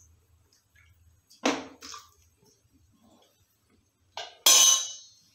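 Metal cookware being handled: a steel ladle and an aluminium pressure cooker knock and clink. There are two sharp knocks about a second and a half in, then a louder clang with a bright metallic ring just past four seconds.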